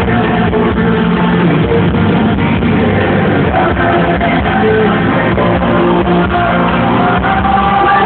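Live country-rock band playing loudly in an arena, with guitar and singing, heard from the crowd.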